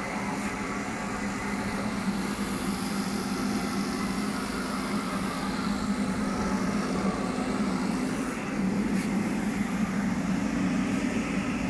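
A 1997 Haas VF-3 CNC vertical machining center runs with a steady mechanical hum and whir. About eight seconds in the sound dips briefly, then returns with a slightly higher note.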